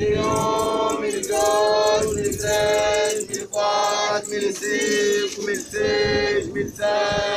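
A group of voices singing or chanting in unison, in about seven held notes roughly one a second with short breaks between them.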